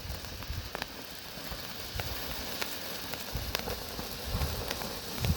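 Firework fountain burning with a steady hiss, broken by scattered small crackles.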